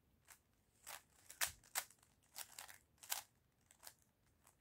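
Plastic 3x3 Rubik's cube being turned quickly by hand: an irregular run of faint, sharp clicks and clacks as its layers snap round during a speed solve.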